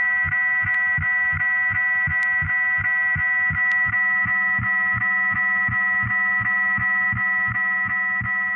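Circuit-bent office telephone electronics sounding a steady, buzzy chord of high tones over a fast low pulsing beat, about four pulses a second.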